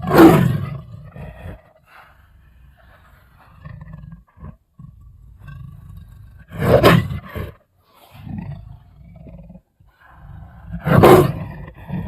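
Leopard roaring: three loud roars, one right at the start, one about seven seconds in and one about eleven seconds in, with quieter, lower calls in between.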